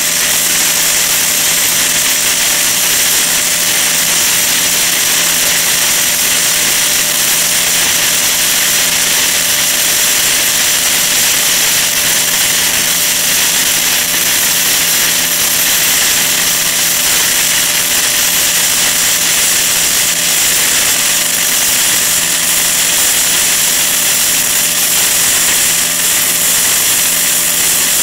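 Gasless flux-core arc welding on 2 mm steel with a Parkside PIFDS 120 A1 inverter welder: the arc crackles and hisses steadily without a break. A low steady hum sits under it.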